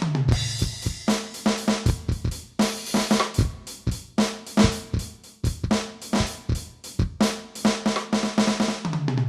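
Drum beat played on an Aroma TDX-16S electronic drum kit, its sampled kick, snare and hi-hat sounds in a steady, busy groove. A fill runs down the toms at the start and again near the end.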